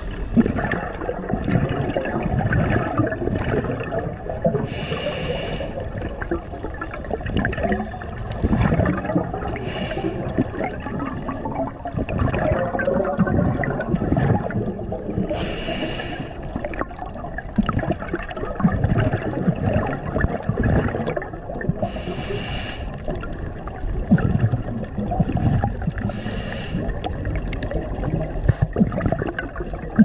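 Scuba diver breathing through a regulator underwater: a short hiss of inhalation five times, every five to seven seconds, with the rumbling gurgle of exhaled bubbles between.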